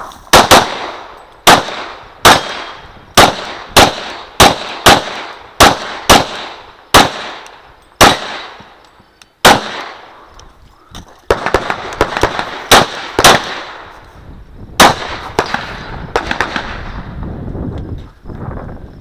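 Glock 35 .40 S&W pistol fired in a rapid string of shots, about half a second to a second apart, each with a short echoing tail. There is a pause of nearly two seconds at about the middle, then another quick run of shots, with fainter pops near the end.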